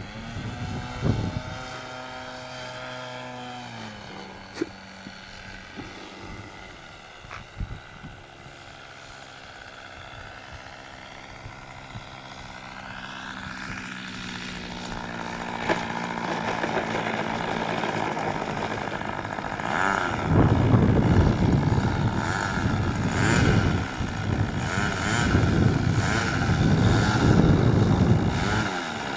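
Pete N Poke RC model airplane engine throttled back on the landing approach. Its pitch drops about four seconds in and it then holds a steady idle. From about fourteen seconds in the sound grows louder and rougher as the plane touches down and rolls along the runway, and over the last nine seconds it comes in loud surging pulses.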